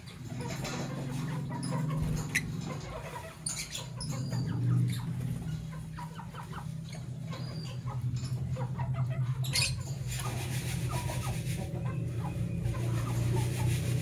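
Lovebird chirping: short, sharp high calls scattered through, with bursts of fainter chatter, over a steady low hum that runs throughout.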